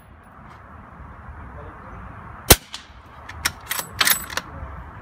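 A Remington 700 .308 with a Crux Nemesis suppressor, firing subsonic ammunition: one sharp, suppressed shot about halfway through. About a second later the bolt is worked, a quick run of metallic clacks with a high ringing clink.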